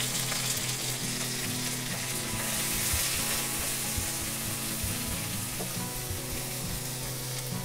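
Chopped onions, green chillies and garlic sizzling steadily in hot oil in a nonstick wok, stirred with a silicone spatula that knocks and scrapes softly against the pan in the middle of the stretch.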